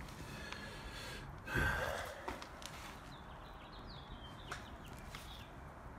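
A short, heavy breath out through the nose close to the microphone about one and a half seconds in, amid faint clicks of a handheld phone camera being moved.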